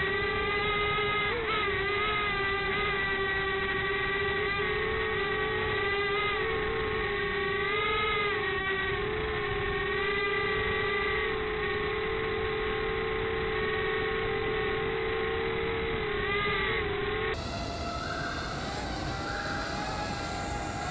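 WL Toys Q242G micro quadcopter's motors and propellers whining steadily in flight, heard close through the drone's own onboard camera, the pitch wavering a little with throttle. About 17 seconds in the whine cuts off abruptly and a quieter, fuller sound takes over.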